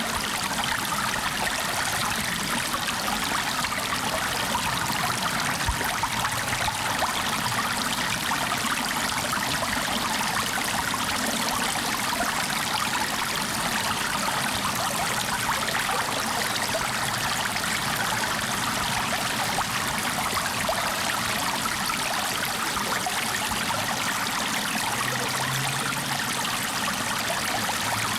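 Flowing stream water running steadily, an even rushing trickle with no breaks.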